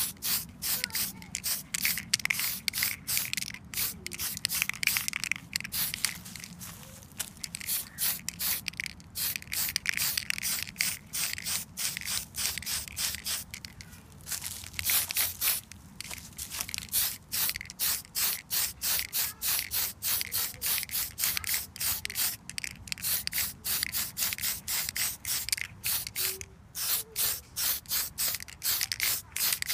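Aerosol spray can of primer hissing in rapid short bursts, a few a second, as it is sprayed over a plastic RC car body.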